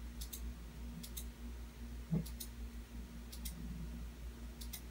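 Computer mouse clicking as checkboxes are ticked one by one: each click is a quick press-and-release pair, about one a second. A low steady hum runs underneath.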